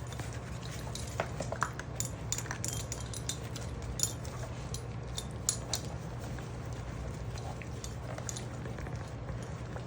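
Six-week-old puppies at their food: scattered sharp clicks and clinks of dry kibble and the bowl, thinning out after about six seconds, with a few short squeaks about a second in, over a steady low hum.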